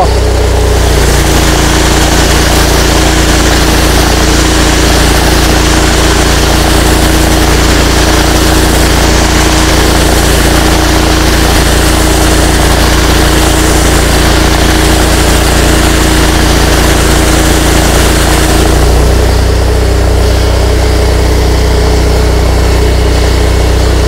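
Trailer-mounted pressure washer: its engine runs steadily under the hiss of the high-pressure spray from the lance, flushing downstream-injected chemical solution out of the hose ahead of a fresh-water rinse. About three-quarters of the way through, the engine's note changes.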